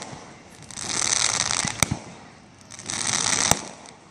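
Aerial fireworks crackling in two spells, each about a second long and each ending in a sharp bang.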